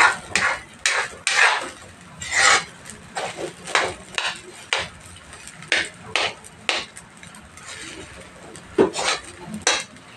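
Metal spatula scraping and knocking against a metal wok as rice is stir-fried, in irregular strokes about one or two a second, with a quieter spell about two-thirds of the way through.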